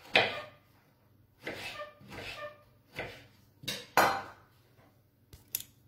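Knife cutting an orange on a wooden cutting board: a series of short slicing strokes and knocks of the blade against the board.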